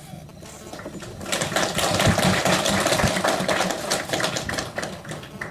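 A rapid, dense clatter of clicks that swells about a second in and thins out near the end.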